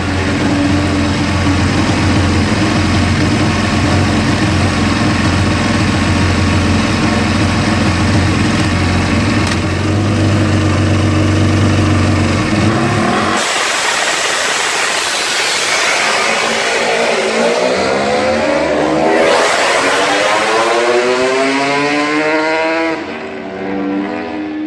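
Ducati Panigale 1199 V-twin World Superbike engine held at steady revs for a practice start. After about 13 seconds it accelerates away, its pitch climbing and dropping back several times as it shifts up, and fading with distance.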